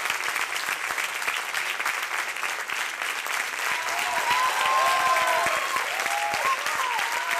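Large theatre audience applauding steadily. From about four seconds in, voices call out and cheer over the clapping, and the sound grows louder.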